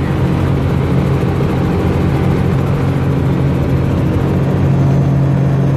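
Small helicopter's engine and rotors heard from inside the cabin in flight: a loud, steady, low drone that does not change.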